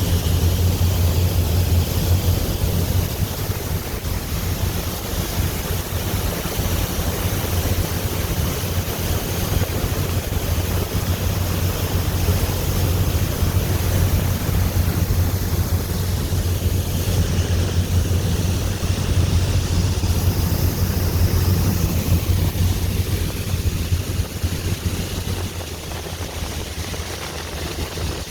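Tour boat under way: the engine's low, steady drone, with wind buffeting the microphone and water rushing past the hull. It gets a little quieter near the end.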